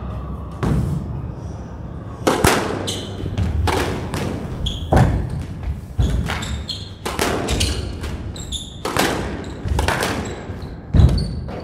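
Squash rally: the ball is struck by rackets and smacks off the court walls in a string of sharp hits about a second apart, with short squeaks of court shoes between the hits.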